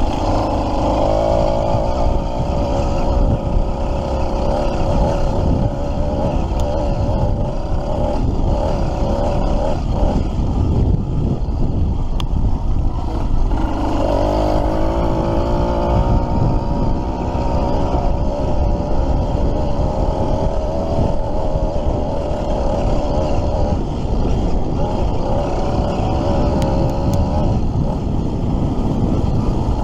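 Motorized bicycle's small two-stroke kit engine running while riding, its pitch wavering up and down with the throttle over heavy low rumble.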